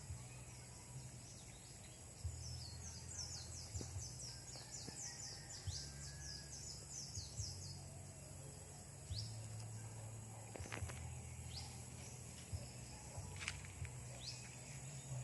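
Quiet outdoor ambience with a bird singing a fast run of short, high, down-slurred chirps for several seconds, then a few scattered single chirps. A faint low rumble runs underneath.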